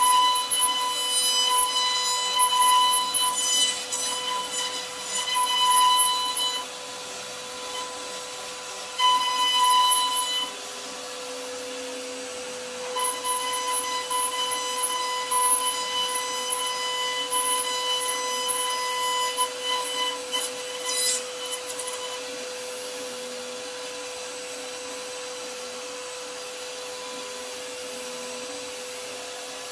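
CNC router spindle whining steadily while its bit carves grooves into a wooden door panel. The cutting noise is loud for the first several seconds, again briefly around ten seconds, and from about thirteen to twenty-two seconds; in between and afterwards only the steady whine remains.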